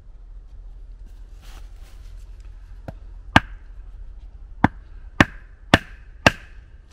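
A hardwood wedge being struck to split a round of firewood: a faint tap, then five sharp wooden knocks, the last four about half a second apart, each with a short ring.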